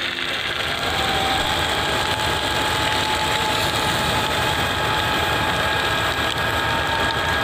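An engine running steadily, with a faint high whine over a dense rushing noise. It cuts off suddenly at the end.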